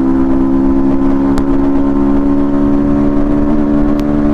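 Yamaha MT-15's 155 cc single-cylinder engine, fitted with an aftermarket Akrapovic exhaust, held at high steady revs under throttle, its pitch creeping slightly up, with wind rush underneath.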